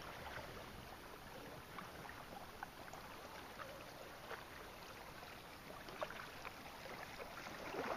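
Kayak being paddled on calm water: quiet paddle strokes, with soft small splashes and drips from the blade.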